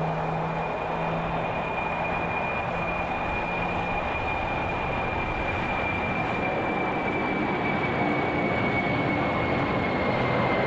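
Boeing 747-400 freighter's four jet engines running on departure: a steady roar with a thin high whine that slowly drops in pitch, growing a little louder toward the end.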